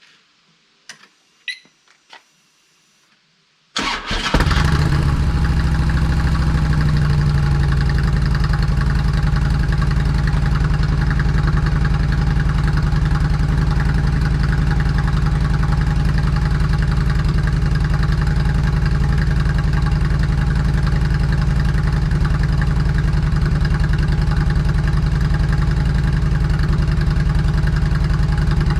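Harley-Davidson Street Glide's Twin Cam 96 V-twin, fitted with the stock 2008 slip-on mufflers, started up: a few faint clicks, then about four seconds in the engine cranks, catches and settles into a steady idle with a deep low rumble.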